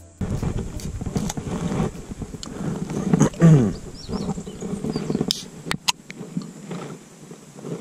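Rustling and rubbing of dark clothing against the camera microphone, with a short falling low sound about three and a half seconds in and two sharp clicks a little past five seconds.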